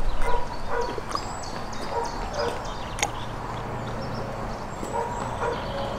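A dog barking repeatedly in short barks, with high chirps over it and one sharp click about three seconds in.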